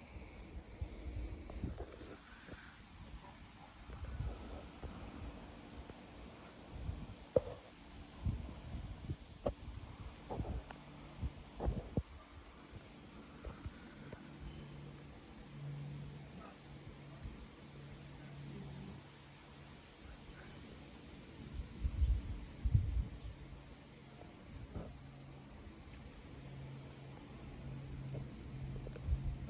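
Cricket chirping steadily, about two high chirps a second, with scattered low thumps. A low steady hum comes in about halfway through and continues.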